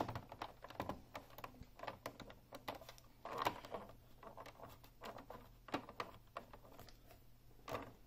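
Faint, scattered clicks and rattles of a Unicomp Ultra Classic buckling-spring keyboard being handled, lifted at one end and pressed on to test the flex of its plastic frame. A couple of louder knocks come about three and a half seconds in and near the end.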